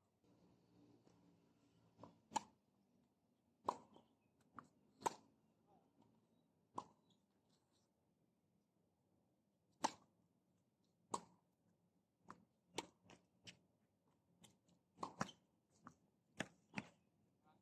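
Tennis ball knocks on a hard court, ball bounces and racket strikes: about twenty sharp, short hits spaced irregularly, some in quick runs of three or four about half a second apart.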